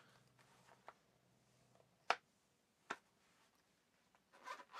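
Quiet desk sounds of art supplies being handled: two sharp clicks a little under a second apart, then a short patch of rustling near the end.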